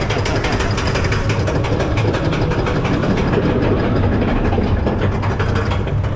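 Spinning roller coaster car running along its track: a steady low rumble with fast, dense rattling and clicking.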